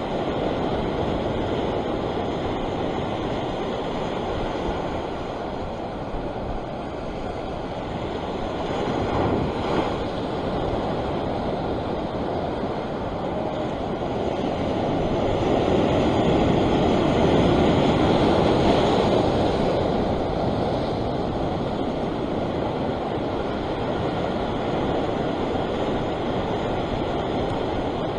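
Ocean surf washing and breaking over the rocks close below, with wind on the microphone; the wash swells louder about halfway through, then settles.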